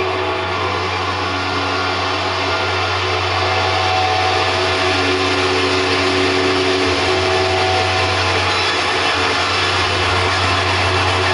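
Live electronic noise music from a tabletop rig of effects pedals: a dense wall of hiss and static over a steady low drone, with held tones that come and go every few seconds.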